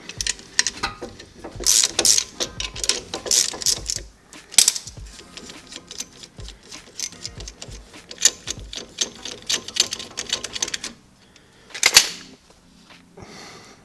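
Ratchet wrench clicking in rapid runs as it backs off the screws of a twin-piston brake caliper compressor, with one louder sharp clack about twelve seconds in.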